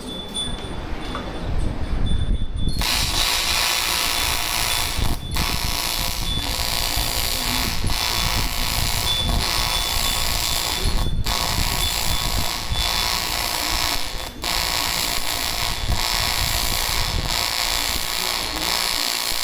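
AC TIG welding arc on aluminium, a loud harsh buzz held in long runs. It breaks off briefly three times and stops near the end.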